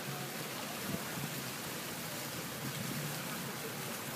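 Steady rushing noise of moving water with a faint low hum underneath.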